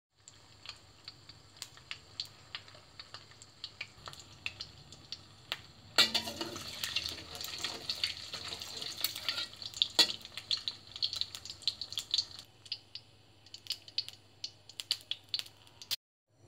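An egg frying in hot oil in a wok, crackling and spitting with scattered sharp pops. About six seconds in it turns louder and denser, with a metal spatula scraping under the egg, then settles back to sparser pops.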